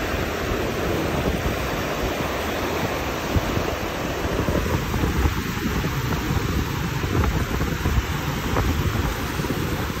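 Wind buffeting the phone's microphone with a heavy, uneven rumble, over water washing and splashing against a rocky shoreline.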